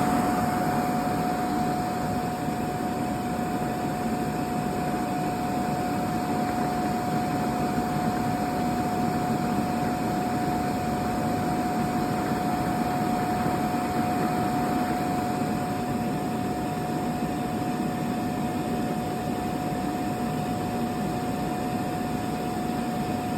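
A running machine gives a steady drone and hiss with one constant whining tone held throughout.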